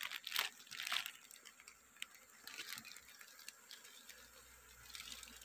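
Clear plastic bag crinkling as pieces of honeycomb are handled in it: a few short rustles in the first second or so, then only faint scattered rustles and ticks.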